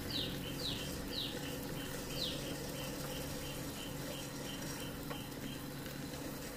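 Tabletop wet grinder running with a steady low hum, its stones turning in the steel drum as soaked urad dal is ground into vada batter. Over it comes a high chirping at about two a second, first falling chirps, then shorter pips, stopping about five and a half seconds in.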